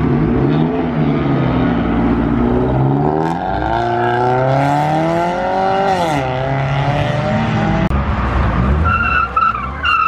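Car engines revving hard as cars pull away, the pitch climbing and falling between about two and six seconds in, then a tire squeal near the end.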